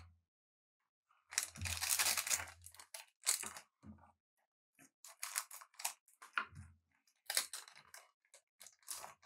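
Trading cards and their pack wrapping being handled: a series of irregular crinkling, tearing and rustling bursts, the longest lasting over a second near the start, then shorter ones.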